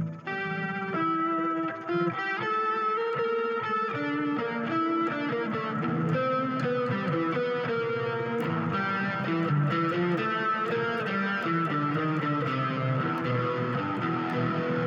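Electronic keyboard playing its 'Comp Organ 1' sweep voice: a steady, continuous run of distinct pitched notes and chords.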